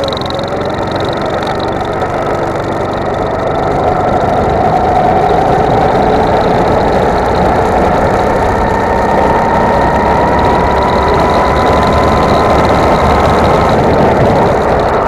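Go-kart engine heard onboard, its pitch dipping through a bend and then climbing steadily as the kart accelerates, with a drop in pitch near the end as it lifts off. Heavy wind and vibration noise run under it.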